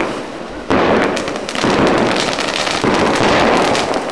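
Fireworks going off: a loud, dense crackling hiss that starts abruptly about a second in and keeps going.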